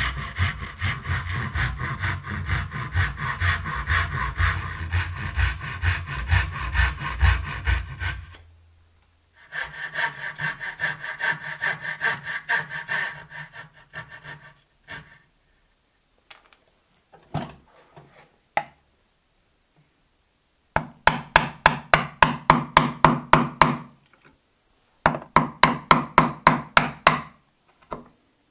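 Hand sawing of hardwood dovetails. A thin-bladed handsaw cuts steadily for about eight seconds at about three strokes a second. Then, with pauses between, there are shorter runs of quicker sawing strokes of about five a second from a fine-bladed coping saw clearing the waste between the tails.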